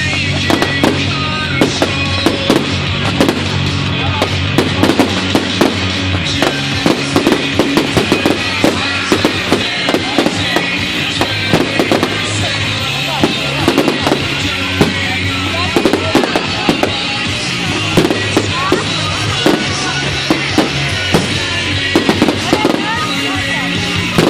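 Fireworks display: many fireworks bursting and crackling in quick succession, over music with a steady bass line.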